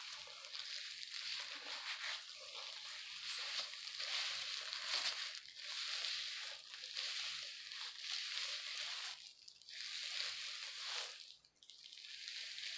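Gloved hands squishing and rubbing hair dye through wet hair: a soft, wet rubbing that swells and fades, dropping out briefly twice near the end.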